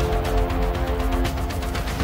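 Background music: sustained notes over a deep bass and a steady beat.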